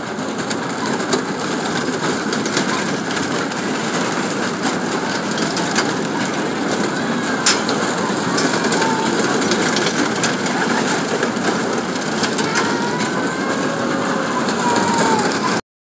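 A flat amusement ride running, a steady rumbling noise of its cars moving around the track, with a few faint, high voices from riders. It cuts off suddenly near the end.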